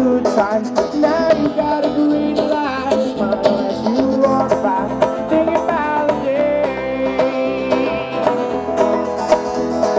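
Live band playing an instrumental passage: electric bass, hand drums and guitar, with a lead melody of bending notes over steady percussion.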